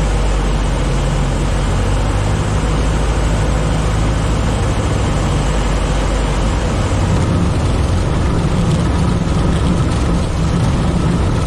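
Citabria light plane's piston engine and propeller running loud and steady, heard close up from the engine cowling as the plane rolls along a grass runway.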